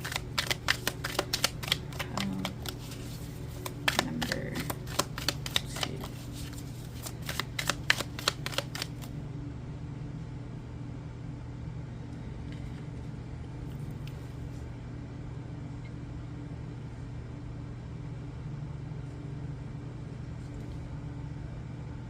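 Tarot cards being shuffled by hand: quick, irregular flicks and slaps of cards that stop about nine seconds in. A steady low hum continues underneath.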